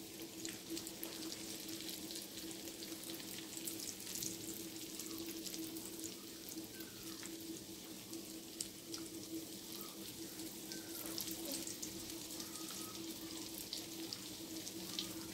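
Pirozhki (yeast-dough pies) frying in hot oil in a frying pan: a steady sizzle with many small crackles and pops.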